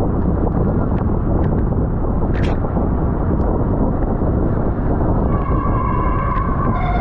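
Wind rushing over the microphone of a bicycle racer's camera at race speed, with a few light clicks. About five seconds in a held high tone with overtones starts, and it drops lower in pitch just before the end.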